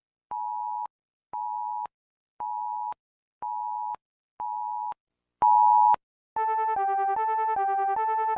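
Emergency alert broadcast tones: five short identical beeps about once a second, a sixth louder beep with a buzz under it, then a continuous synthesized alert tone that flips quickly back and forth between two pitches.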